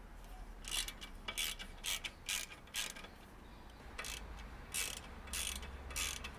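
Socket ratchet wrench clicking in about ten short bursts, with a pause near the middle, as bolts holding a motorcycle's stock front fender on the fork legs are undone.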